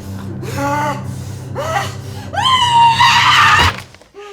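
A person screaming: two short cries, then a long, loud, high scream that cuts off suddenly, over a low steady hum.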